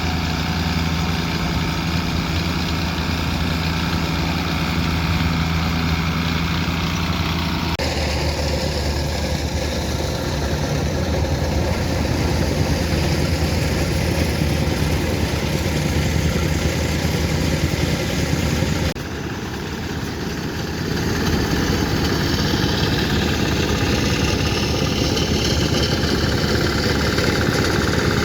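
Heavy earthmoving machine's engine running steadily at work, its low engine note shifting abruptly about a third and two thirds of the way through where shots are cut together.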